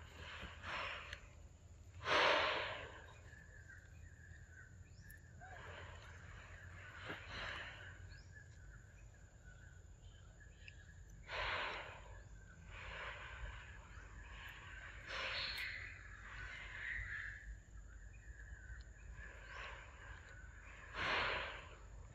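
Faint outdoor ambience with a steady high tone. Soft, breathy huffs come every couple of seconds, the loudest about two seconds in.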